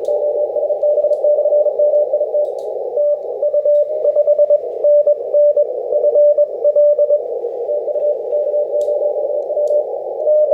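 Yaesu HF transceiver audio through a narrow CW filter: steady band-limited receiver hiss with a Morse code signal keyed on and off as a single steady tone. No interference is audible from the 100-watt transmission 20 kHz below.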